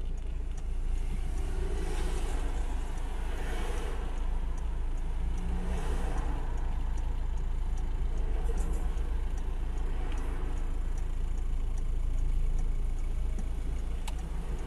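Engine and road noise from inside the cabin of a diesel car driving in city traffic: a steady low rumble, with a sharp click near the end.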